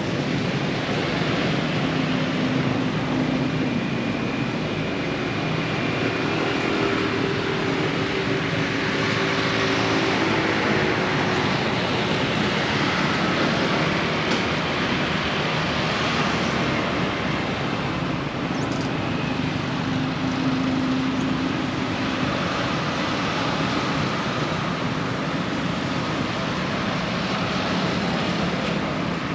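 Steady road traffic noise, with engine hum that swells and fades now and then as vehicles pass.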